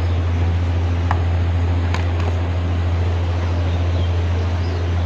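A steady low hum under a constant hiss, with a few faint clicks.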